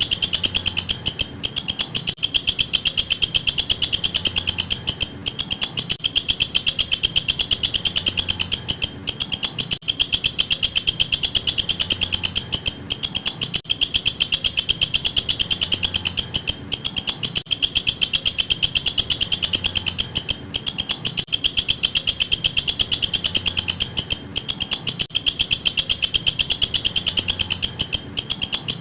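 Walang kecek, a singing bush cricket, calling in a fast, continuous high-pitched trill of rapid pulses that breaks off briefly about every four seconds.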